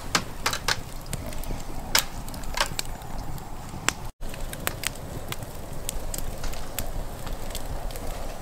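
Wood campfire crackling, with sharp pops and snaps at uneven intervals over a steady low rumble. The sound drops out for an instant about four seconds in.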